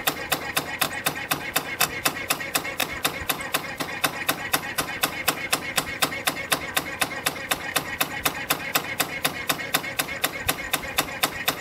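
CNC compression spring coiling machine (YHM CF-320) running at production speed on 1.2 mm wire, about four springs a second. It gives a rapid, even rhythm of sharp metallic clicks, one per spring, over steady machine noise.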